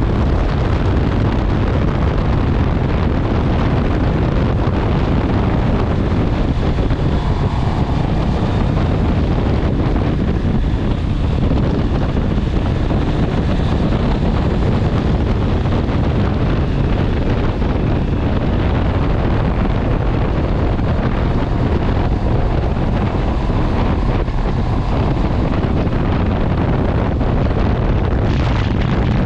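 Steady wind rush on the microphone from riding a Honda CB650R motorcycle at road speed, with the bike's engine running underneath.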